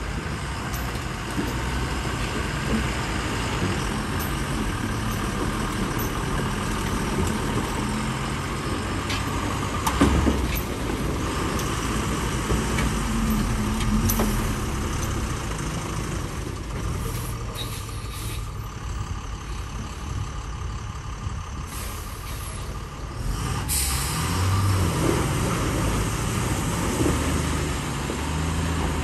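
Heavy multi-axle lorry's diesel engine running at low speed as the truck crawls over rutted mud, with a loud knock about ten seconds in and short air-brake hisses near the middle and again later.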